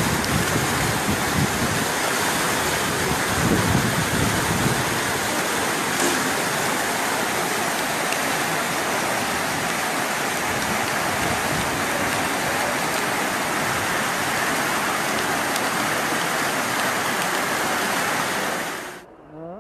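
Floodwater rushing in a torrent down a narrow lane: a loud, steady rush of water. It cuts off suddenly near the end.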